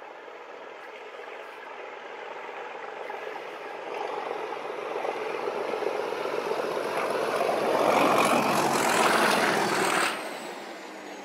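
Diesel locomotive with a snow plough approaching and passing close by, its engine mixed with a heavy rush of snow being blasted off the track. The sound builds steadily, is loudest as it goes by, and drops sharply about ten seconds in.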